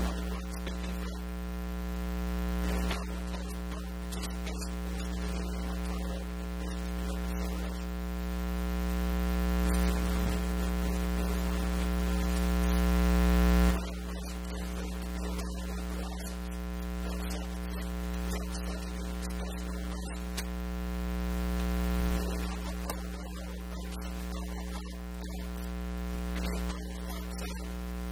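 Steady electrical mains hum with a stack of overtones, slowly swelling in level and then falling back sharply several times.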